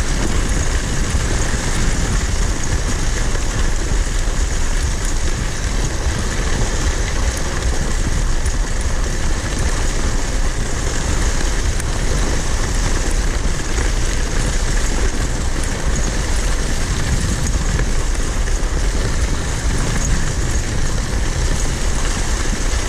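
Steady rushing noise of a kicksled gliding over the snow trail, a steady hiss with low rumbling wind buffeting on the microphone.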